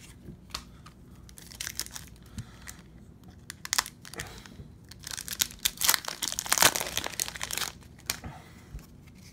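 Foil wrapper of an Upper Deck MVP hockey card pack crinkling and tearing as it is handled and pulled open by hand. The crackling comes in scattered bits at first and is densest a little past the middle.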